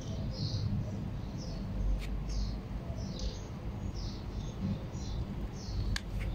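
A small bird chirping over and over: short, high, falling chirps about two a second, over a low rumble, with a sharp click about two seconds in and another near the end.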